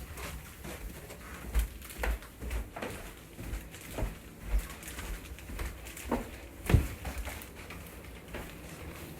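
Footsteps going down a flight of stairs: a run of low thumps, roughly two a second, with light clicks and knocks above them. The heaviest step falls near seven seconds in.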